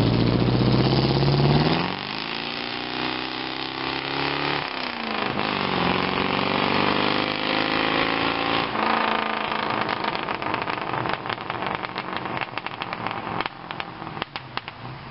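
1973 Ford Mustang's 302 Windsor V8 running through glasspack mufflers as the car drives off and accelerates away. The engine note climbs, drops once as it shifts up a little under five seconds in, and climbs again. It then fades into the distance.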